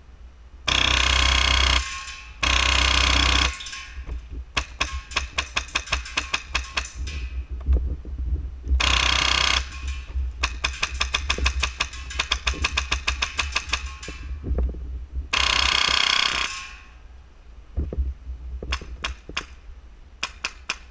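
Airsoft electric rifle firing on full auto in four bursts of about a second each, so fast that the shots run together into one buzz. Between the bursts come quicker runs of separate sharp airsoft shots or BB hits, about six a second.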